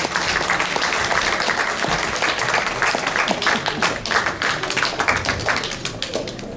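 Audience applauding: a dense, steady crowd of hand claps that thins slightly near the end.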